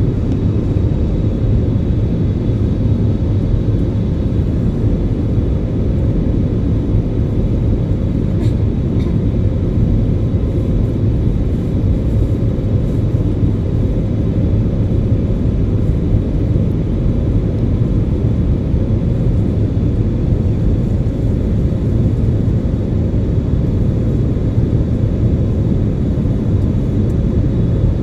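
Airliner cabin noise: a steady, loud rumble of the engines and airflow heard from inside the passenger cabin, with a faint high whine above it.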